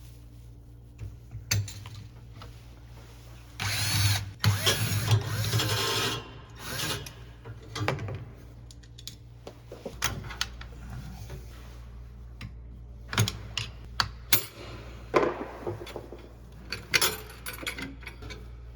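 Cordless drill/driver running in a short burst about four seconds in, backing out screws. Scattered clicks and knocks of parts being handled follow.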